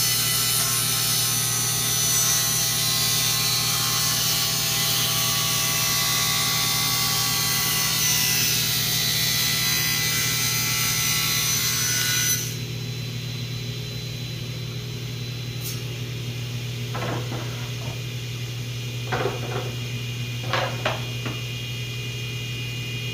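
Table saw cutting through a wood panel at a slow, controlled feed, a light trim cut taking off about a thirty-second of an inch. About halfway through, the cut ends and the saw runs on quieter, the blade spinning free, with a few light knocks of the board being handled.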